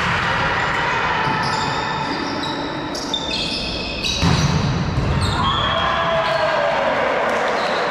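Volleyball rally in a reverberant sports hall: a serve, sneakers squeaking on the court floor, and a hard spike hit about four seconds in. Shouts from players or spectators follow the spike.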